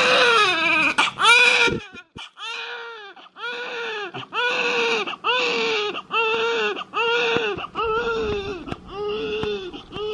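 Newborn baby crying in short wails repeated one after another, with a brief break about two seconds in.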